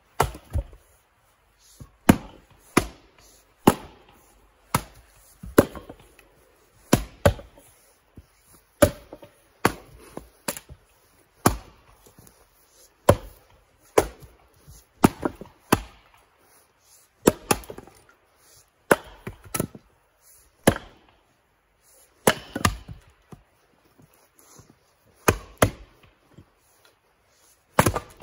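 Two men splitting firewood rounds with axes: a steady, irregular run of sharp chops, about one a second and sometimes two in quick succession, as the axe heads bite into and split the wood.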